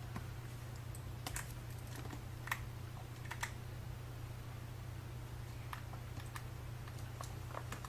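Scattered light clicks and taps of a tiny flat-head screwdriver against an iPhone's small screws and metal frame as the screws are worked loose, over a steady low hum.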